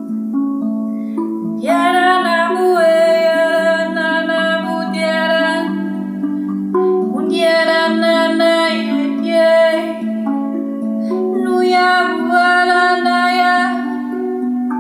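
Rav Vast steel tongue drum in B Kurd played as a continuous run of ringing notes, with a woman singing long, wordless light-language notes over it. The voice comes in about two seconds in and sings three long phrases.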